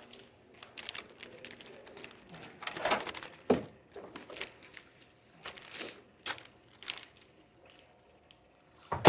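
Kitchen handling noises: crinkling and rustling with scattered clicks and knocks, the loudest about three seconds in and again around six seconds, then quieter near the end.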